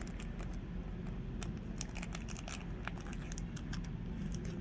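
Small plastic packaging crinkling and crackling in the hands as a miniature toy is unwrapped, with many quick irregular clicks.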